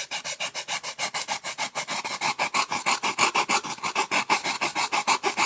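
A small file rasping back and forth over polystyrene foam in fast, even strokes, about nine a second, to smooth and level the edges of a foam boat. The filing stops abruptly at the very end.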